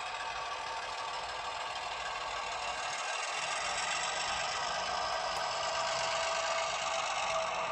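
Model diesel locomotive sound from the LokSound 5 sound decoder in an HO scale Atlas MP15DC switcher: the diesel engine running through the locomotive's small speaker as it moves cars. It gets a little louder about halfway through.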